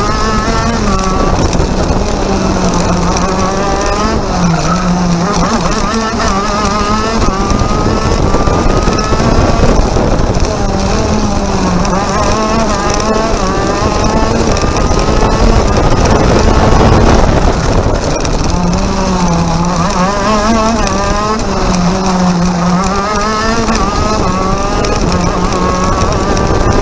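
KZ shifter kart's 125cc two-stroke engine at racing speed, its pitch climbing repeatedly as it revs out through the gears and dropping back on each shift and each slowing for a corner.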